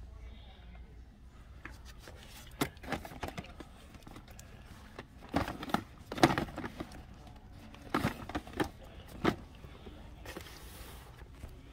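Cardboard action-figure boxes being handled and shuffled by hand: scattered knocks, scrapes and rustles of packaging in clusters, loudest about six seconds in.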